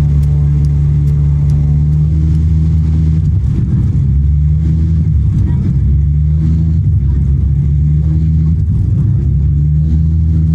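Loud, steady low rumble of an Airbus A321 airliner in flight: its jet engines and the rush of air heard from inside the passenger cabin through a phone's microphone.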